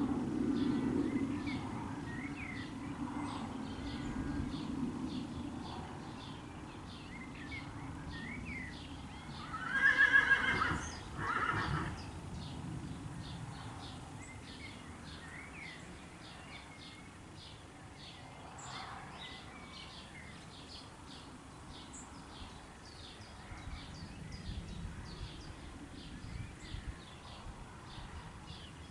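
A loud animal call about ten seconds in, in two parts lasting about two seconds together, over outdoor ambience with a steady high ticking that repeats about three times a second.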